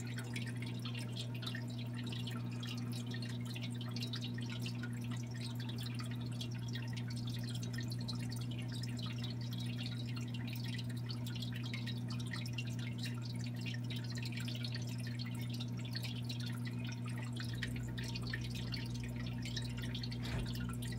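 Aquarium water trickling and bubbling as a dense patter of small drips, over a steady low hum from the tank's equipment. A low rumble joins near the end.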